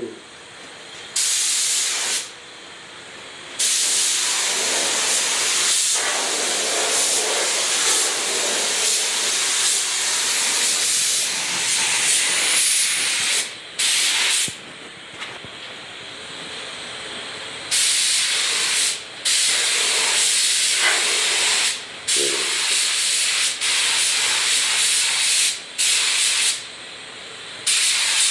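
Compressed-air paint spray gun spraying clear coat, a loud steady hiss that starts and stops in bursts of a second to several seconds as the trigger is pulled and released.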